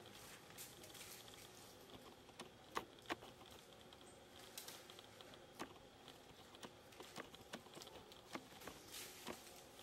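Quiet forest background with scattered sharp clicks and light crackles at irregular intervals, the two loudest close together about three seconds in, over a faint steady hum.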